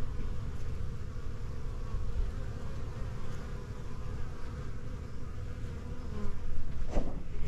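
Honeybees buzzing in numbers around the entrance of their hive boxes, a steady drone over a low rumble that rises and falls.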